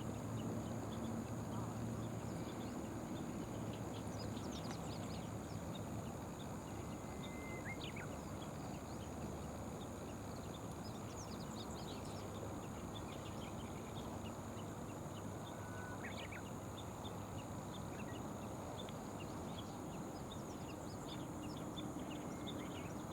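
Steady outdoor background noise with faint bird chirps and short whistles scattered through it.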